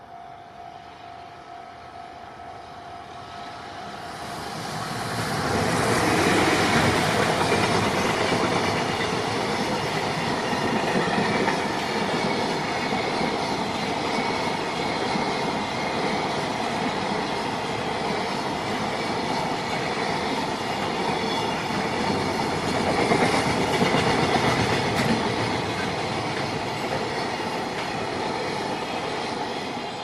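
A long JR Freight container train, hauled by an electric locomotive, passes over a level crossing. Its running noise builds about four seconds in, is loudest soon after it arrives and again about three quarters through, and fades near the end. The crossing's warning bell rings steadily underneath.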